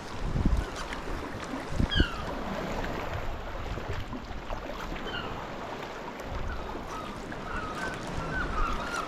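Seabirds calling from a sea cliff over the noise of water and wind around a sea kayak, with a few brief low rumbles. Single short calls come about two and five seconds in, then a rapid run of short calls builds near the end.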